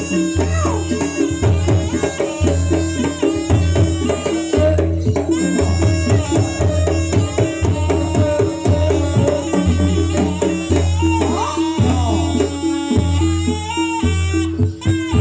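Live jaranan campursari music: drums and percussion over a low bass note that pulses about once a second, with a melody line sliding in pitch above.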